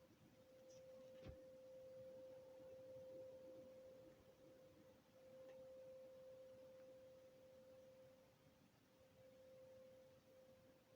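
Faint, distant drone at one steady tone, swelling and fading slightly, which the recorder takes for an industrial noise. A brief click about a second in.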